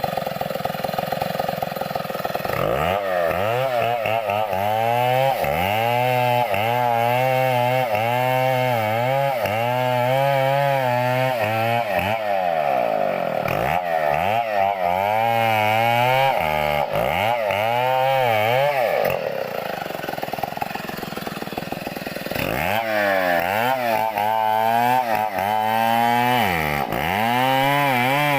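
Chainsaw idling briefly, then revved up and down again and again as it cuts into a coconut palm trunk. It eases off for a few seconds about two-thirds through, then revs hard again.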